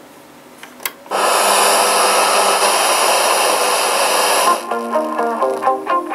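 Panasonic FM/MW/LW portable radio switched on with a click about a second in, then a loud rush of FM static. Near the end a station's music breaks through in snatches as it is tuned in: the FM band receiving again after a faulty solder joint was reflowed.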